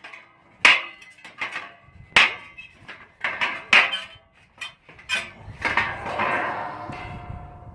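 Spike of a saw-blade tomahawk repeatedly chopped into a chunk of stainless steel, a sharp metal-on-metal strike with ringing about every second. Near the end comes a longer stretch of ringing.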